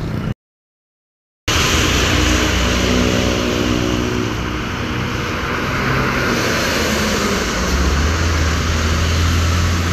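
After a second of silence, a diesel coach bus drives past on a rain-soaked road: its engine running under heavy rain and the hiss of tyres on wet asphalt, the engine's low hum growing strongest near the end as the bus comes close.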